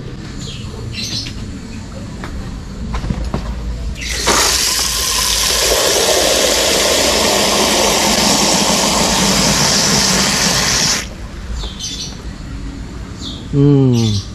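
Tap water gushing into a small glass tank: a loud, steady rush lasting about seven seconds that stops abruptly. Near the end comes a short squeal falling in pitch.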